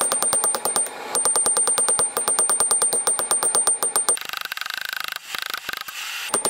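Hammer blows on red-hot tool steel over a steel anvil, coming fast and very evenly with a high ring. About four seconds in the blows stop for roughly two seconds of rougher noise, and the rapid hammering starts again near the end.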